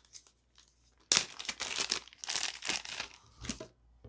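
Clear plastic packaging bag crinkling in irregular bursts as it is handled and pulled open, starting about a second in and lasting roughly two and a half seconds.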